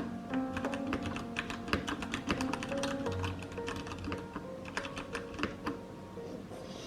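Typing on a computer keyboard: an uneven run of quick keystroke clicks, over soft background music.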